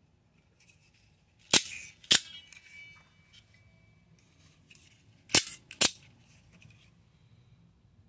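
Vintage NATO Military automatic knives snapping open, sharp metallic clicks in two pairs about four seconds apart. A brief metallic ring follows the second click of the first pair.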